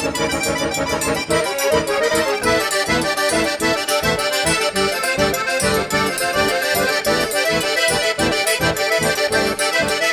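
Accordion-led instrumental music: held chords at first, then about a second in a quick, steady rhythm of notes takes over.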